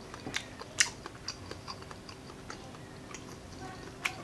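Close-miked chewing of a mouthful of food: soft wet mouth clicks with a few sharp crackles, the loudest a little under a second in.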